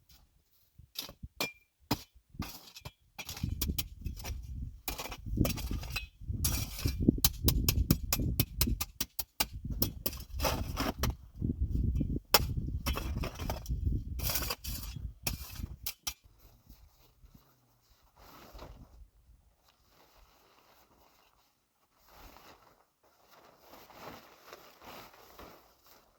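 Rapid clinks and knocks of hard objects striking one another, with a low scraping rumble, for most of the stretch; they stop about two-thirds of the way in, leaving faint rustling and scraping.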